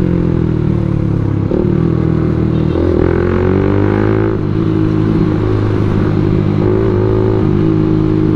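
Motorcycle engine running under way in traffic, with wind noise over the microphone. The revs climb about three seconds in, then ease off gradually.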